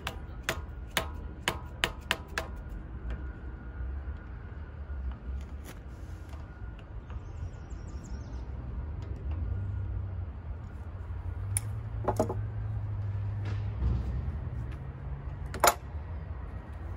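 Sharp metallic clicks and taps from hand tools worked against the mini excavator's bucket cylinder: a quick run of about six in the first two and a half seconds, then a few single louder ones later. A steady low hum runs underneath.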